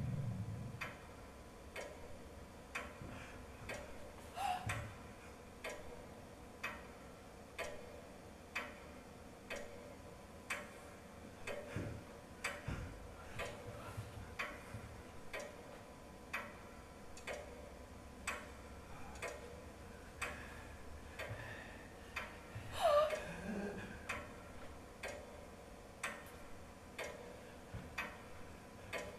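Faint, steady clock ticking, about one tick a second. About three-quarters of the way through comes a brief voice sound with a falling pitch, the loudest moment.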